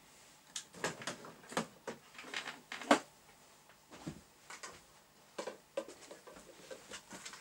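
Objects being picked up and moved on a workshop shelf: irregular clunks, clicks and rustles of handling, with a sharp knock about three seconds in as the loudest.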